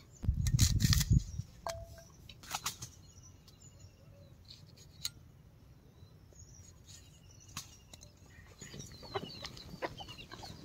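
Quiet farmyard ambience with hens clucking and birds calling, the calls growing busier near the end. A brief low rumble about a second in and a few faint knocks.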